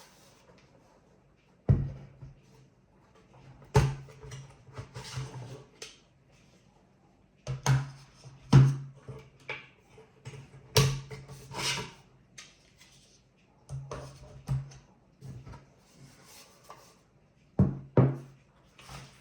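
Sharp plastic and metal clicks and knocks, with rubbing in between, from a small NAS enclosure and its parts being handled and worked open by hand.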